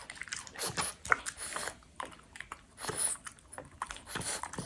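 French bulldog eating from a plate: chewing steak and tuna, with irregular sharp clicks and wet smacks of the jaws and teeth.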